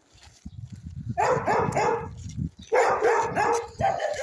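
A dog barking in quick runs of about four barks each, the first starting about a second in and another coming a second and a half later, over a low rumbling noise in the first half.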